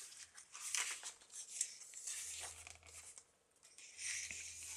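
Paper pages of a handmade journal being turned and handled, rustling and crinkling in about four separate bursts.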